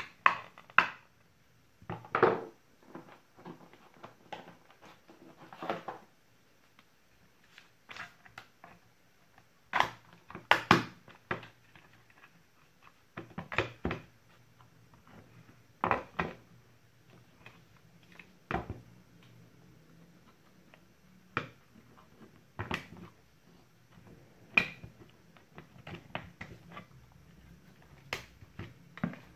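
Irregular plastic clicks, knocks and snaps from a Ferton 18V cordless drill's plastic housing being handled and pried open with a plastic pry tool.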